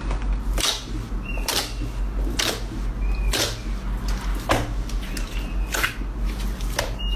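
Slime being squeezed and poked by hand, a short squelch or pop about once a second over a steady low hum.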